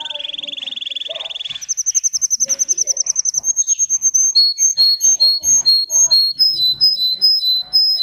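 Green domestic canary singing: a fast rolling trill that jumps to a higher trill about a second and a half in, then turns into a slower run of clear whistled notes switching between two pitches, and stops abruptly at the end.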